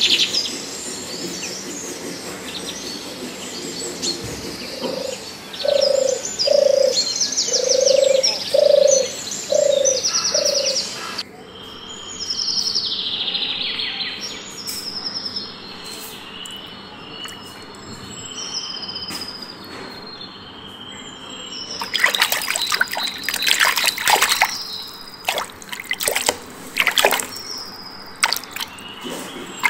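Birds calling and chirping, with a low note repeated six times, about once a second, in the first third. In the last third, water splashing and sloshing as a hooked fish thrashes and is hauled up out of a water-filled hole in the bank.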